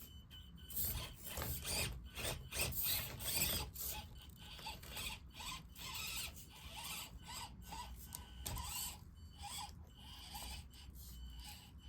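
Axial Deadbolt RC crawler driving over sand and rocks: its small electric motor and gears give a short whine that rises and falls with the throttle, over irregular scraping and gritty crunching from the tyres. The scraping is busiest and loudest in the first few seconds.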